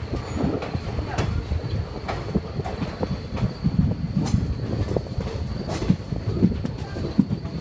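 Express passenger train running on the rails as it pulls out of the station, heard from on board. A steady low rumble carries irregular clacks and knocks from the wheels and couplings, over a faint steady high whine.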